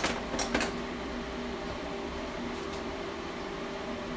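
Steady hum of the running TIG welding machine, with a few sharp metallic clicks in the first half-second as the welding ground clamp is handled on the steel table.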